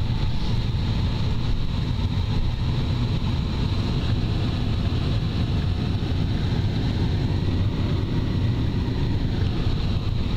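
Vehicle engine running, heard from inside the cabin as a steady low rumble, with a faint steady high whine above it.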